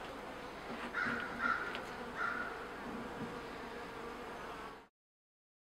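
Honey bees buzzing steadily around a top-bar hive, with three short bird calls about a second in. The sound cuts off suddenly near the end.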